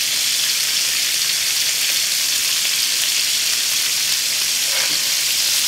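Bacon-wrapped filet mignon searing in hot olive oil and melted butter in a cast iron skillet: a steady sizzle.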